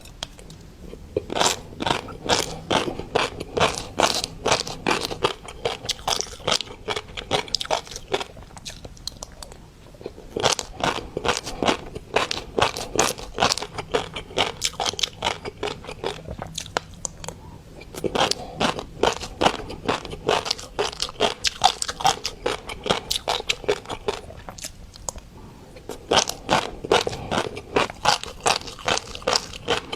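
Close-up chewing of mixed-colour fish roe, the eggs popping as rapid crisp crunches in bursts of several seconds with short pauses between.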